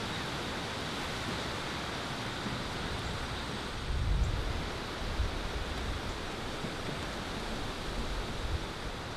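Strong wind rushing steadily, with a gust buffeting the microphone in a low rumble about four seconds in and smaller buffets later.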